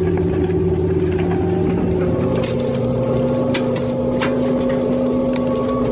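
Compact excavator running a hydraulic stump grinder attachment: a steady mechanical hum whose pitch drops about two seconds in, with scattered faint ticks.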